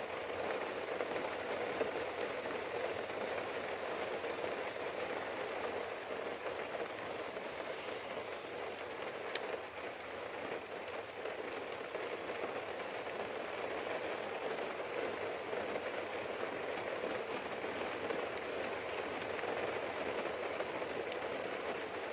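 Storm rain falling steadily on the roof, heard from inside.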